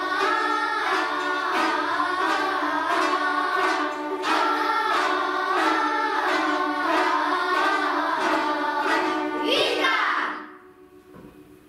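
Children's ensemble singing together while plucking chatkhans, Khakas long board zithers, in a lively melody over a steady beat of plucked strings. About ten seconds in the song ends on a loud sliding vocal note and the music stops.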